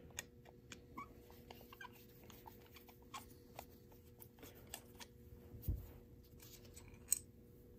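Faint, scattered small clicks and scrapes of a screwdriver working inside a dismantled Argo carburetor body, with a soft thump about six seconds in and a sharper click near the end.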